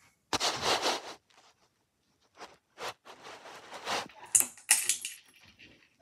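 Handling and rustling noises, then a ceiling fan's metal pull chain jingling and clicking about two-thirds of the way through.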